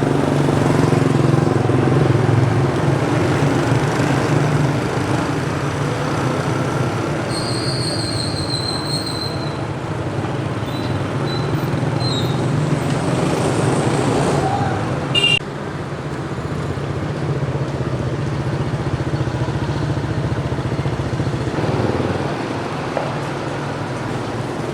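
Street traffic with a vehicle engine running steadily, a loud low hum and rumble. There is a brief high squeal about eight seconds in and a sharp click about halfway through.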